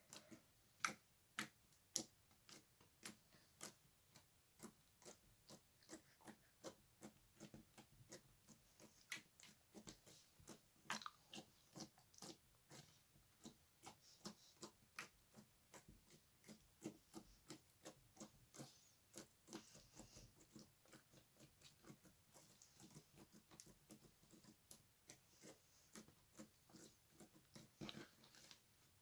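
Slime being played with: a run of small, irregular sticky clicks and pops, a few a second, with now and then a louder one.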